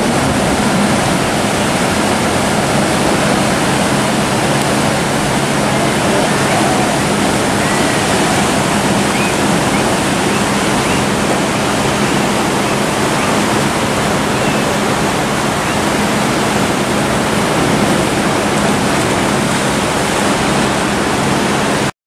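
Ocean surf breaking and washing around coastal rocks: a loud, steady rush of waves with no pauses.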